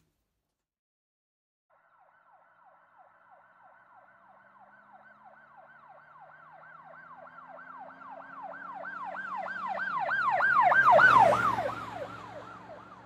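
Emergency vehicle siren on a fast yelp, about three wails a second, coming in about two seconds in and growing steadily louder as it approaches. It peaks near the end with engine and road noise underneath, then fades away as it passes.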